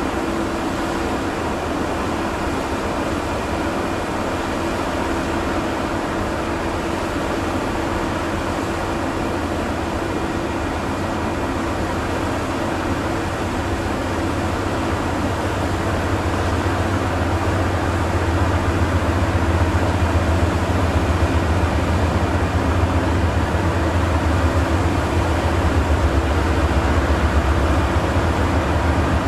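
Diesel freight locomotives approaching, a GE C40-8 in the lead: a low engine rumble that grows louder about halfway through, over a steady hum.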